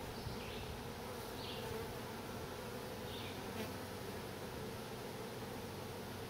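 Honey bees humming steadily from a mass of bees covering an open hive frame.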